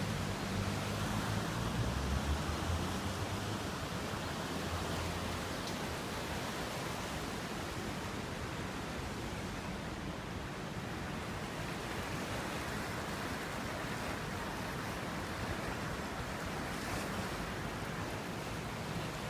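Steady rushing noise of fast-flowing river water, with a low rumble in the first few seconds.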